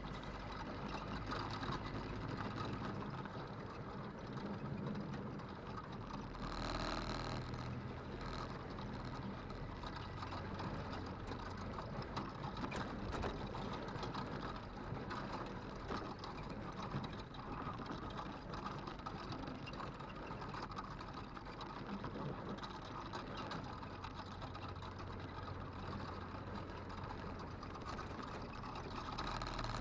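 A vehicle's engine running steadily while driving, with a constant rattling and clicking over it. There is a brief louder noise about seven seconds in.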